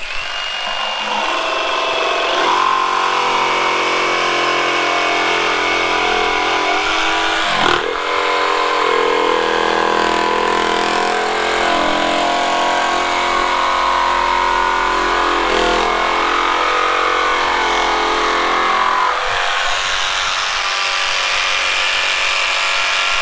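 Flex 24V cordless jigsaw cutting a curve through a hardwood board. The motor's pitch wavers as the blade is steered round the circle, with a brief dip about eight seconds in, and the sound stops suddenly at the end. The blade binds a little at one point in the curve but otherwise cuts smoothly.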